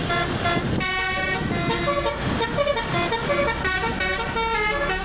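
Multi-tone 'telolet' bus horn playing a quick melody of changing notes, over a steady low engine noise.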